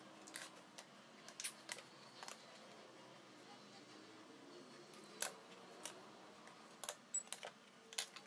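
Light, irregular clicks and taps as a metal square and a pencil are handled and set down on a plywood workbench while panels are marked out.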